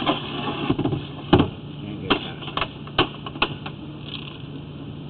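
A handful of sharp clicks and knocks at uneven intervals, the loudest about a second and a half in, over a steady low hum.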